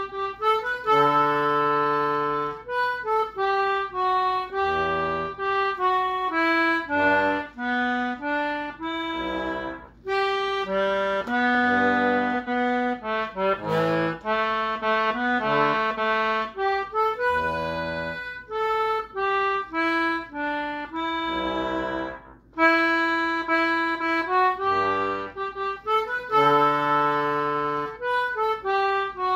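Concertina playing a tune: a melody of quickly changing reedy notes over lower chord notes. The playing breaks off briefly about ten seconds in and again about two-thirds of the way through.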